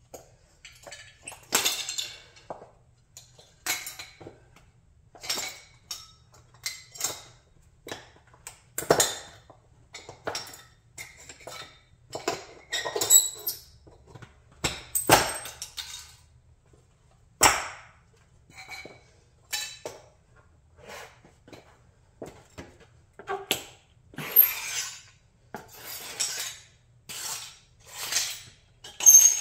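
High-heeled sandals stepping on and grinding the broken pieces of a Chrysler 300B model car on a concrete floor: irregular cracks, crunches and clinks of small hard parts, about one to two a second, some sharp and some drawn-out crackling.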